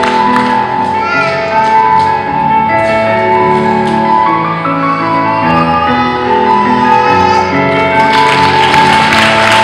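Music with slow, held melody notes over a lower accompaniment.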